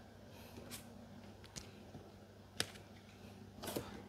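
Faint handling sounds: a few light clicks and rustles as a power-tool battery pack and its cardboard packaging are moved about, the sharpest click about two and a half seconds in.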